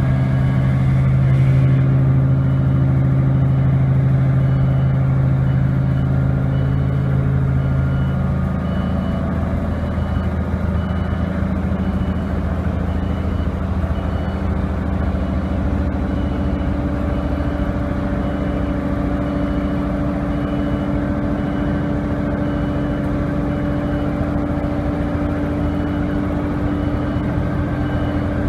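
A YZ-400 hydraulic vibratory hammer running on a steel pipe pile, a loud, steady mechanical hum from the hammer and its hydraulic drive. The main hum shifts in pitch about eight seconds in and settles on a higher steady tone.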